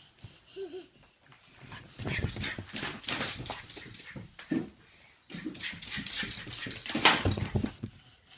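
A small dog making noises while play-fighting: a short whine within the first second, then several seconds of dense, scuffling commotion, loudest near the end.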